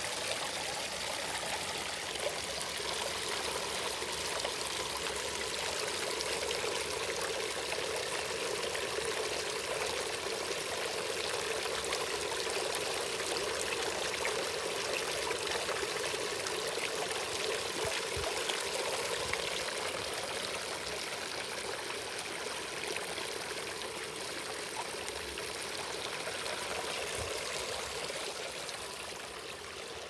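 Small garden bowl fountain running: water spraying from the top jet and spilling over the bowl's rim into the basin below as a steady splashing trickle, a little fainter near the end.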